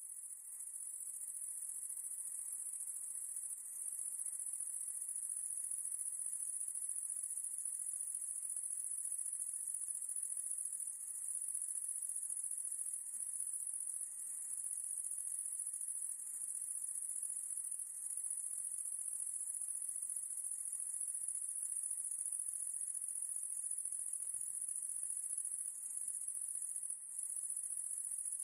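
Steady, high-pitched insect chorus, fading in over the first second or two and then holding even.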